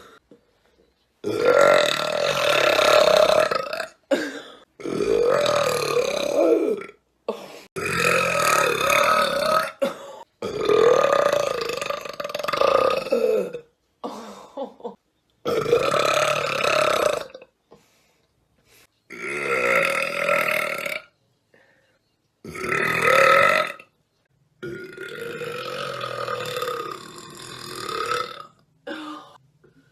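A woman burping loudly: a string of about ten long, drawn-out burps, each lasting one to three seconds, with abrupt silences between them.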